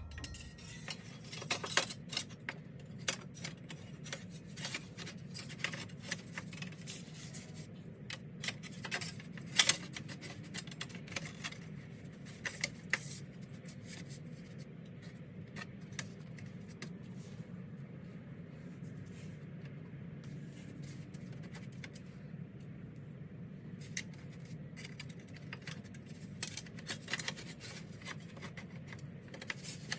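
Hands fitting an aluminum clutch liner and handling metal parts and tools: scattered clicks, clinks and light scrapes, with a sharper knock about nine seconds in, over a steady low hum.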